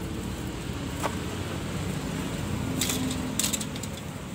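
Crackling and rustling of dry leaf litter and twigs being handled at the base of a sapling, with a sharp click about a second in and two bursts of crackling near the end, over a steady low rumble.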